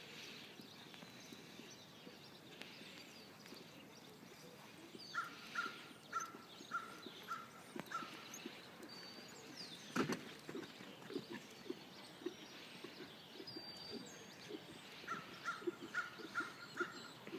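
Horse cantering on sand arena footing, its hoofbeats in a regular rhythm, with one loud thump about ten seconds in. A bird calls a run of five or six short, evenly spaced notes twice, once about five seconds in and again near the end.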